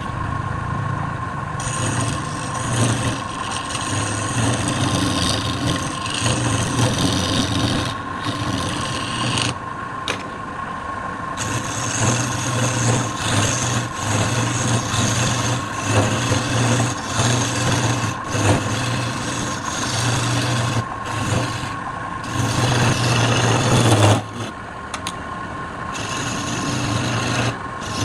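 Wood lathe running with a tool or abrasive scraping against the spinning wood in repeated passes, the loudest one about 24 seconds in.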